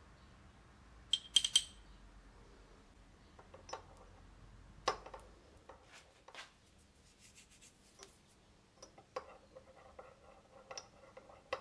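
Metal teaspoon clinking and scraping against a small ceramic espresso cup while stirring an oil-and-spice mixture: a quick cluster of sharp, ringing clinks about a second in, then scattered single taps, and a run of small clinks and scrapes near the end.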